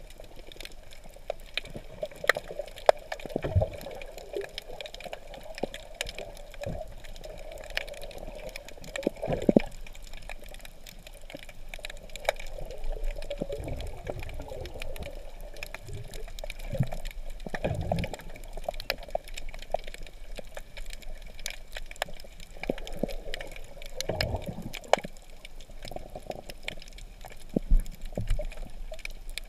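Underwater sound recorded with the camera submerged among shallow rocks: a steady muffled wash of moving water, scattered with sharp clicks and crackles, and several louder low surges of water.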